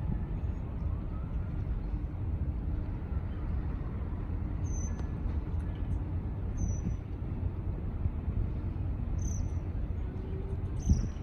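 A small songbird giving four short, high, slightly falling chirps a couple of seconds apart, over a steady low background rumble.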